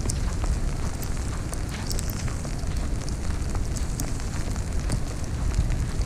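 Wind of an icy winter storm buffeting the microphone in a steady low rumble, with scattered sharp crackling ticks throughout.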